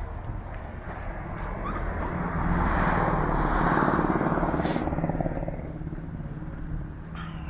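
A motor vehicle driving past, its engine and tyre noise swelling over a couple of seconds to a peak near the middle and then fading.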